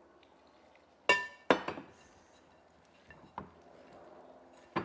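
A stirring utensil knocking against a mixing bowl of batter: two sharp, ringing clinks about a second in, then a few lighter taps.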